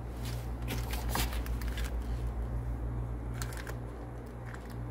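Clear plastic wrapping crinkling as a new connecting rod bearing shell is unwrapped by gloved hands, mostly in the first two seconds and again briefly past the middle. A steady low hum runs underneath.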